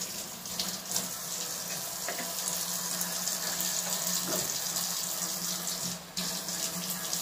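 Steady hiss and sizzle from a steel pot of coconut milk, water and turmeric heating over a gas burner, with a low steady hum underneath and a brief dip about six seconds in.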